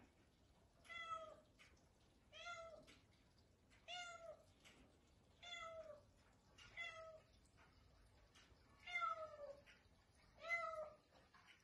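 Egyptian Mau cat meowing repeatedly: seven short, falling meows, about one every one and a half seconds, the two near the end a little louder.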